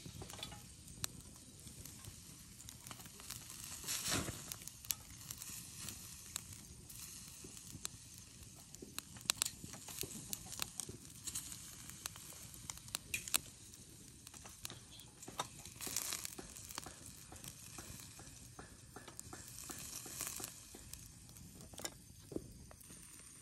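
Chicken drumsticks sizzling over a small charcoal grill, with frequent sharp pops and crackles. The sizzle swells briefly about four seconds in and again around sixteen seconds.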